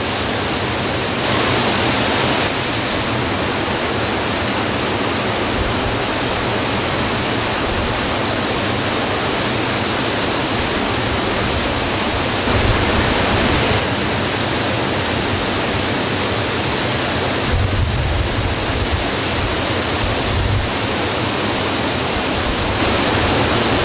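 Waterfall in high flow after heavy rains: a loud, steady rush of water plunging into a rocky pool and churning white water, briefly swelling a few times.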